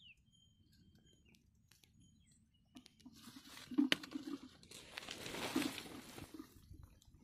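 Footsteps crunching and rustling through dry, dead lotus leaves and stalks on a dried riverbed, with irregular crackles, starting about three seconds in. Before that, only a few faint bird chirps.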